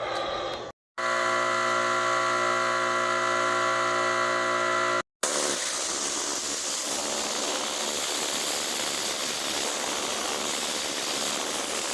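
Ryobi electric pressure washer running: a steady, even whine from its motor for a few seconds, then, after a cut, a steady hiss of the high-pressure water spray.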